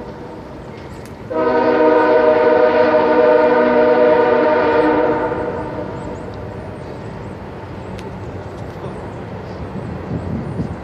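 Train horn sounding one long, loud blast of about four seconds, starting about a second in, several notes held together; after it fades, the steady noise of the moving train remains.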